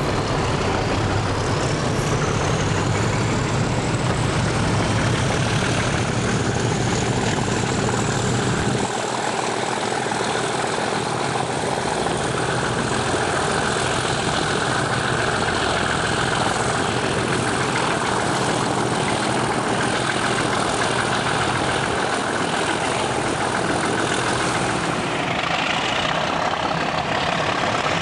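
A pair of Class 37 diesel locomotives with English Electric engines working under power, heard from an open carriage window behind them as a loud, steady engine sound. The deep low engine note falls away about nine seconds in, and the sound changes again near the end.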